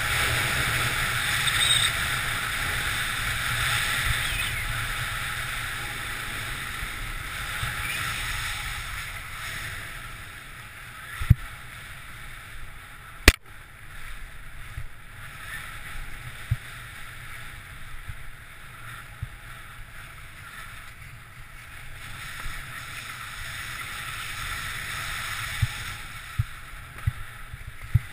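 Skis hissing and scraping over snow, with wind rushing on the camera's microphone. It is loudest at speed on the open run and drops off after about eight seconds as the skier slows in the trees. A few sharp clicks and knocks break through, the loudest about 13 seconds in, with a cluster near the end.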